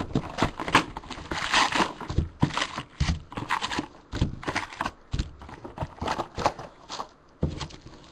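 A box of trading-card packs being opened by hand and the foil packs handled, giving irregular crinkling, scraping and tapping with many short clicks.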